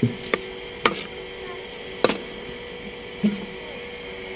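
Metal ladle knocking against a karahi about five times, at uneven intervals, while chopped onions are stirred into oil.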